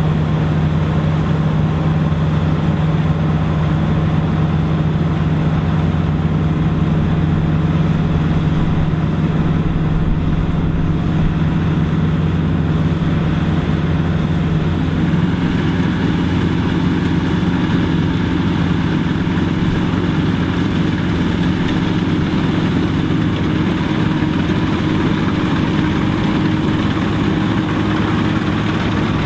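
Dronningborg D900 self-propelled combine harvester running steadily while harvesting, a constant low engine hum with a slight shift in tone about halfway through.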